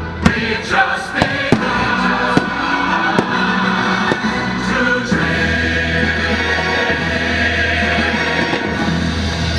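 Fireworks show soundtrack music playing loudly, with several sharp firework bangs in the first half.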